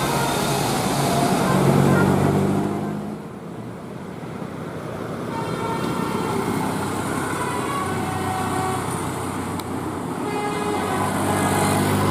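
Basuri 'telolet' multi-tone bus horn playing a tune of changing notes over vehicle noise. It is loudest about two seconds in, drops back briefly around three to four seconds in, and then the notes return.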